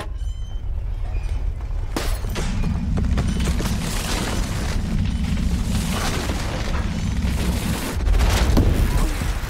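Earthquake rumble in a film's sound design: a deep, steady rumble that grows stronger about two seconds in and swells again near the end, with objects rattling and clattering over it.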